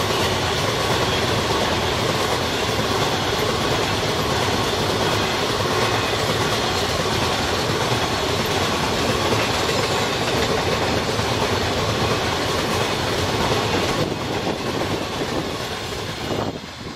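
Long freight train of open wagons rolling past close by, a steady rumble of wheels with clickety-clack over the rail joints. The noise eases a little over the last few seconds and falls away sharply near the end as the train draws off.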